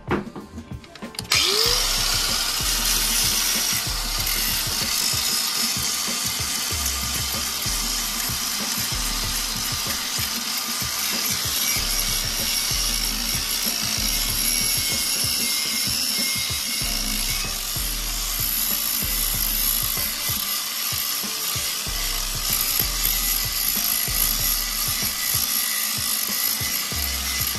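Electric angle grinder with a sanding disc starting about a second in, pitch rising briefly as it spins up, then running steadily as it sands a chromed aluminium alloy wheel.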